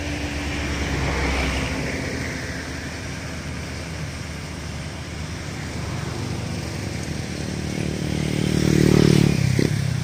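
Rice combine harvester's engine running steadily at a distance. A closer motor vehicle swells up over it, loudest about nine seconds in, then drops away sharply.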